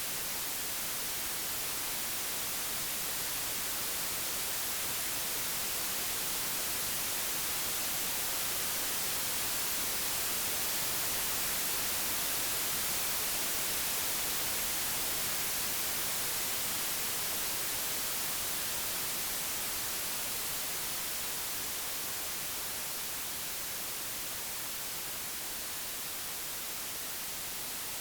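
Computer-generated white noise: a steady, even hiss across the whole range, brightest in the highs. It swells slightly in loudness around the middle and eases off a little toward the end.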